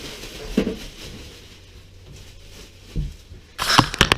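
Welding gear being set up and handled: a dull thump early, a sharp knock about 3 seconds in, then a quick run of clacks and clatter near the end.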